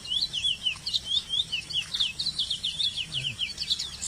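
Male chestnut-bellied seed finch (curió) singing: a fast, unbroken run of short, clear whistled notes, each sliding quickly in pitch.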